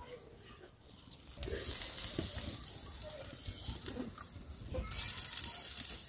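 Curry gravy sizzling in an iron kadhai over a wood-fired mud stove, with a few short soft knocks as cauliflower florets are dropped into the pan by hand.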